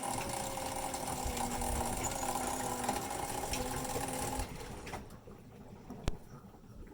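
Maytag Neptune MAH5500 front-loading washer running with a steady mechanical grinding hum, which stops about four and a half seconds in, followed by a single click about a second later. The grinding is still there after the tub bearings were replaced with a kit.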